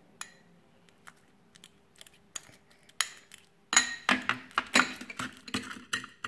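Metal fork clinking and tapping against a small glass bowl while mashing banana: a few scattered light taps at first, then quick, louder clinks from a little past halfway.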